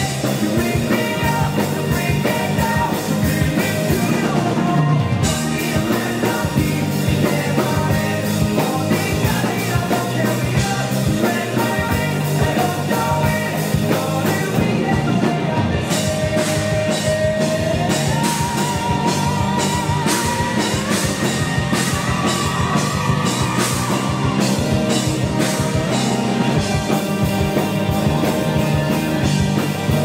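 A live rock band plays at full volume: drums, electric bass and guitars. About halfway through, a held lead line with vibrato climbs in steps.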